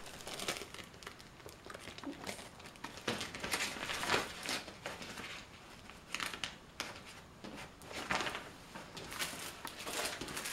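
Clear plastic packaging bag crinkling and rustling in irregular bursts as it is handled and unfolded by hand.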